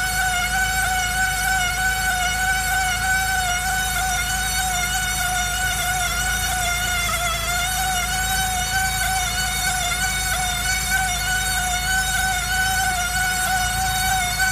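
Steady squeal from the right front of a 2002 Saab 9-5 Aero: one high, continuous whine with overtones that wavers slightly in pitch, over a low running hum.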